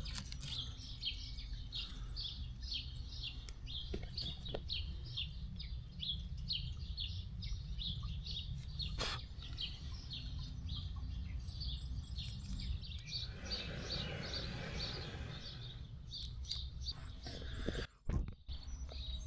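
A bird calling in a steady run of short, high chirps, about three a second, over a low steady background rumble.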